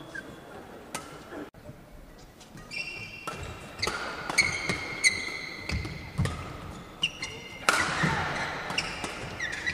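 Badminton doubles rally: rackets strike the shuttlecock sharply again and again, quicker after the first few seconds, while court shoes squeak on the floor between shots.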